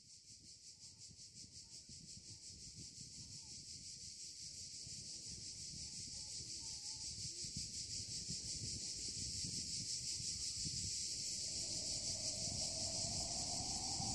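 A high, rapidly pulsing chirring like insects chirping at night, fading in and growing steadily louder over a low rumble. About eleven seconds in, a wavering hum that rises and falls joins it.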